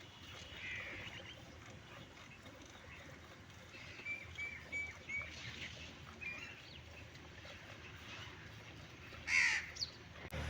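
Chickens and other farmyard birds calling faintly, with a run of short high notes about four seconds in and a louder harsh call near the end.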